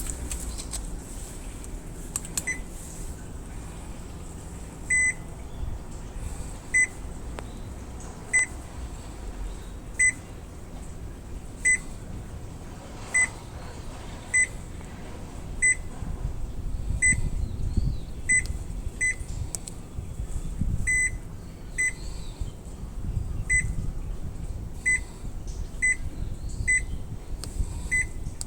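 Muji M-W42D fully automatic washing machine's control panel beeping: short single high beeps at uneven gaps of about a second or more, the sound of its buttons being pressed. Under them is a low rumble that grows louder about halfway through.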